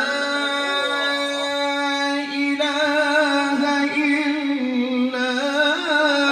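Male Quran reciter chanting tilawah in a melodic style, holding a long steady note that later wavers into ornaments.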